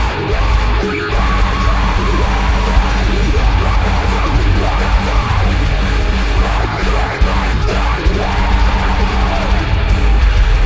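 Loud powerviolence hardcore track: a dense wall of distorted guitar and drums with yelled vocals.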